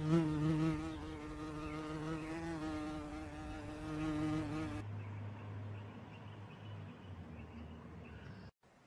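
A flying insect buzzing close by: a steady, slightly wavering drone for about five seconds, then a lower, fainter hum that cuts off abruptly near the end.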